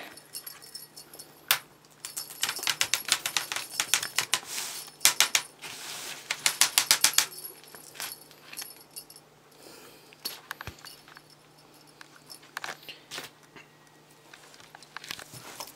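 A kitten batting at and biting a feather wand toy: quick runs of light clicks and rattles, busiest in the first half and sparser later.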